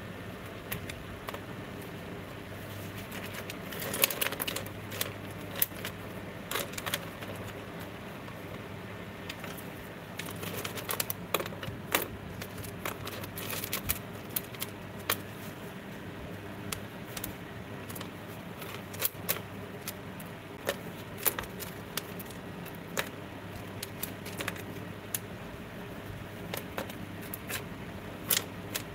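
Small copper-foiled sea glass pieces clicking and clinking against each other and the metal tray as they are picked up, sorted and set down, in irregular single clicks and short clusters, over a steady low hum.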